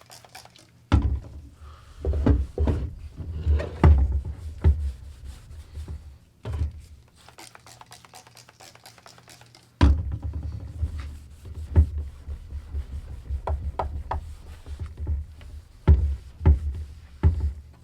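A cloth rag rubbing and wiping over a plastic car headlight lens to clean it, with irregular scrubbing strokes and dull thumps. The rubbing comes in two spells, with a pause of about three seconds in the middle.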